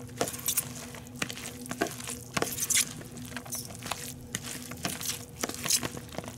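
A spoon stirring grated cabbage with mayonnaise in a plastic bowl: irregular wet squishing and scraping, with short clicks of the spoon against the bowl, over a faint steady hum.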